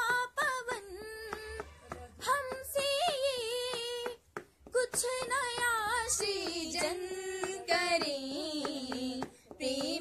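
A young female voice singing a slow melody in Hindi, with long held notes and wavering ornaments.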